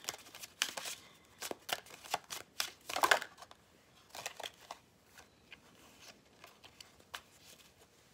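A deck of tarot cards shuffled by hand: a run of quick card flicks and slaps, loudest about three seconds in and growing sparse after about five seconds.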